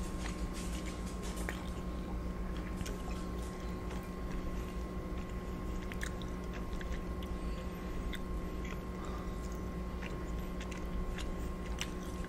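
Close-miked chewing of lobster ravioli, with many small wet mouth clicks, over a steady hum.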